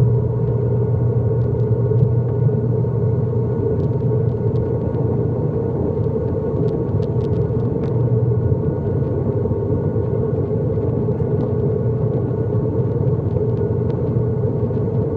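Cabin drone of an ATR 72-600's turboprop engines and propellers in the climb after take-off: a steady low hum with a faint thin whine above it.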